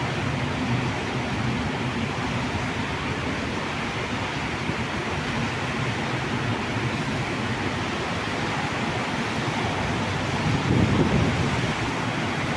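Heavy rain making a steady rushing hiss, over a low rumble that swells briefly about eleven seconds in.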